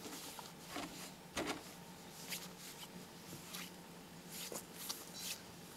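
Scattered soft crunches and rustles of footsteps on snow and grass, irregular and spaced out, the loudest a dull thump about a second and a half in, over a faint steady hum.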